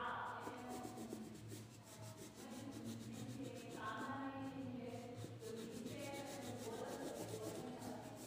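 Crayon rubbing back and forth on paper, shading in a drawing with a continuous scratchy sound.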